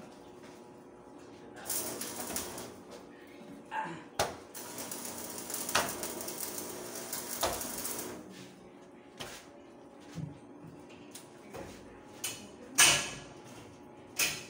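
Electric arc welding on a steel stair railing: the arc crackles and hisses in two stretches, a short one about two seconds in and a longer one of a few seconds from about four and a half seconds in. Then a few sharp metal knocks follow, the loudest a little before the end.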